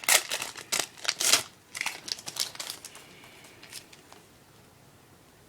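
Foil wrapper of an Upper Deck hockey card pack crinkling and rustling as it is handled and opened, in a dense flurry over the first three seconds that then fades out.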